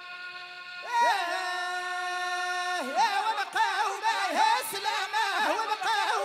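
Gasba reed flutes hold a steady note. About a second in, a male singer enters with a long held note, then moves into wavering, ornamented Chaoui rahaba singing.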